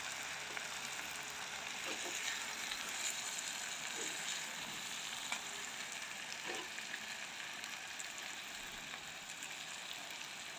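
Stuffed green peppers frying in coconut oil in a clay pot over low heat: a steady, soft sizzle. A few faint clicks come from metal tongs as the peppers are turned.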